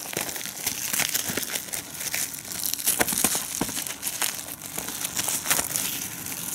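Clear plastic shrink-wrap being peeled off a Blu-ray case and crumpled by hand, crinkling and crackling continuously with many sharp snaps.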